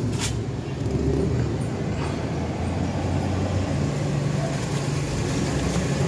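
Honda TMX155 single-cylinder four-stroke engine idling steadily, its pitch shifting slightly a little before four seconds in.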